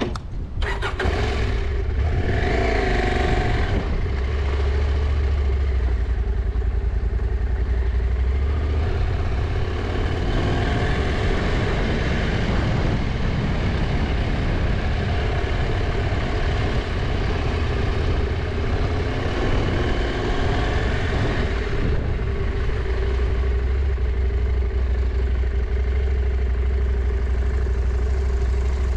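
Husqvarna Norden 901's parallel-twin engine running under way, revving up about one to three seconds in, then pulling steadily with the throttle rising and easing off by turns.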